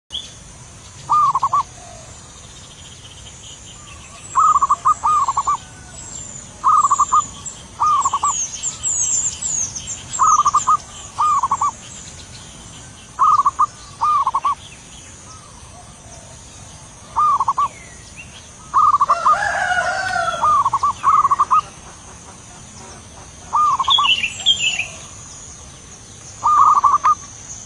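Zebra dove (perkutut) cooing: short phrases of a few quick notes repeated every two to three seconds, with other small birds chirping high and faint in the background.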